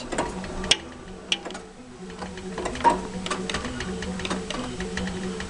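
Claw machine mechanism running: a steady motor hum that starts and stops, with scattered sharp clicks and ticks from the gantry and claw.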